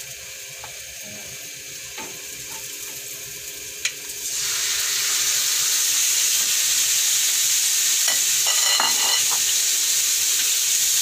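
Cubed raw pork tipped into hot oil with sautéing garlic and onion in a wok: a light sizzle jumps to a loud, steady sizzle about four seconds in as the meat hits the pan. A wooden spatula stirs and scrapes through it.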